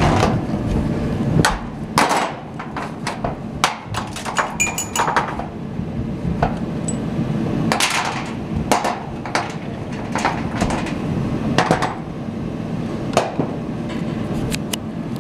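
Irregular metallic knocks and clinks on corrugated steel deck sheeting as shear studs are fitted, some with a short ring after them, over a steady low hum.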